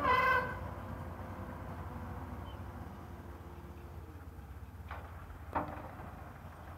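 Steady low machinery rumble from the pile-driving rig. A loud horn-like tone cuts off within the first half second, and two short knocks come about five seconds in.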